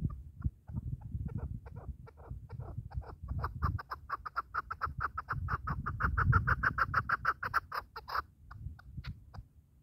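Chukar partridge giving its rally call: a long run of short clucking notes that starts slowly, speeds up and grows louder, then breaks off about eight seconds in, with a few scattered notes after. A low rumble lies underneath.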